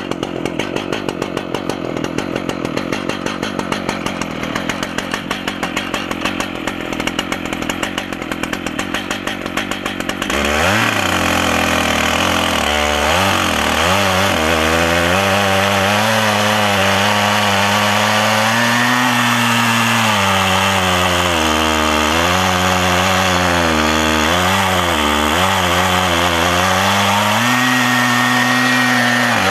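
Stihl MS880 two-stroke chainsaw idling with a fast even pulse, then about ten seconds in opening up to full throttle and running under load as it mills through oak on an Alaskan chainsaw mill, its pitch dipping and recovering as the bar is pushed through the cut.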